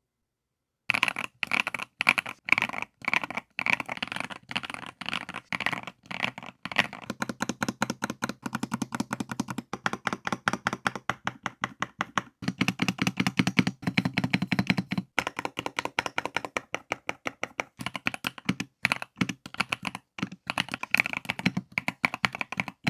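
Typing on a Yunzii mechanical keyboard: a fast, continuous stream of keystroke clicks, starting about a second in.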